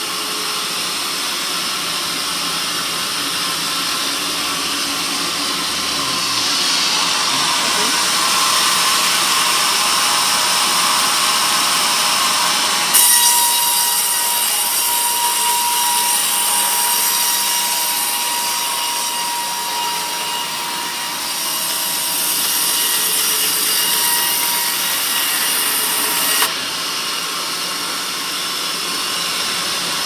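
Band sawmill running, its blade cutting lengthwise through a teak log. About halfway through, the cutting turns suddenly louder and hissier, with a thin steady whine. A few seconds before the end it drops back just as abruptly to the steady run.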